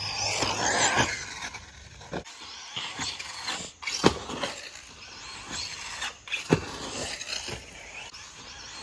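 Large-scale RC buggy's motor running with the pitch rising and falling near the start as it is driven over the jumps. There are sharp thuds as it lands, loudest about four seconds in and again about six and a half seconds in.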